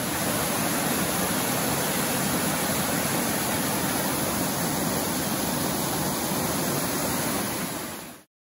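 Waterfall cascading over stepped rock ledges: a steady, loud rush of water that cuts off shortly before the end.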